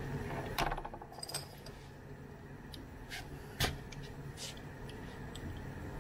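Irregular clicks and metallic clinks from a small screwdriver and a metal pry tool working the plastic housing of a small LCD control display as it is taken apart; the sharpest click comes a little past halfway. A steady low hum runs underneath.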